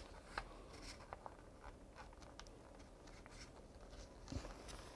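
Faint paper handling: soft crackles and scattered light ticks as a paper airplane's wingtip is pinched and creased up into a winglet, with a small cluster of crackles a little over four seconds in.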